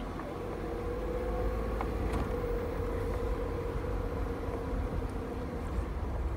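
Off-road vehicle driving slowly down a rough gravel trail, heard from inside the cab: a steady low engine and road rumble with a faint steady hum.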